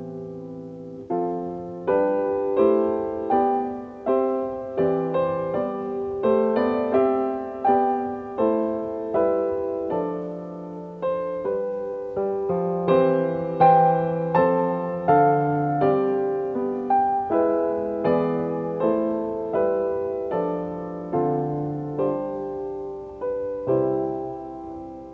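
Background music: slow solo piano, notes and chords struck about once or twice a second and left to fade.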